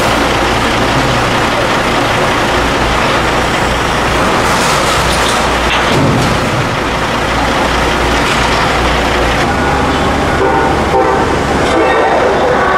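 Compact tracked excavator's diesel engine running as it works the bucket, with a train passing close by; steady high tones come in near the end.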